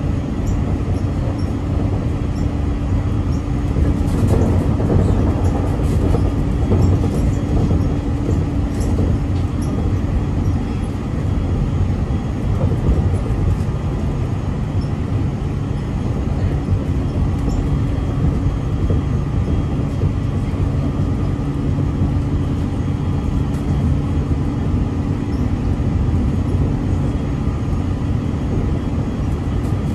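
Electric train standing at a station: the car's onboard equipment hums steadily, with a low rumble and a couple of steady tones.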